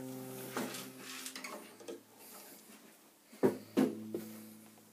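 The final chord of an acoustic guitar ringing and dying away. About three and a half seconds in, two sharp knocks on the guitar set its strings ringing again briefly, and a smaller knock follows.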